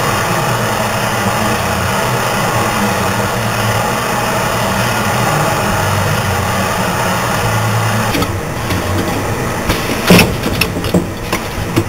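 Automatic yogurt cup filling and sealing machine running: steady machine noise with a low hum while its agitator stirs the yogurt. About eight seconds in the sound changes to the cup table and sealing station working, with a loud clack about ten seconds in and several lighter clacks after it.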